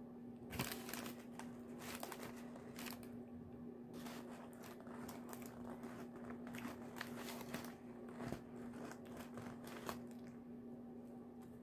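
A person chewing and biting pizza close to the microphone: a run of crisp crunches and clicks, with a steady low hum underneath.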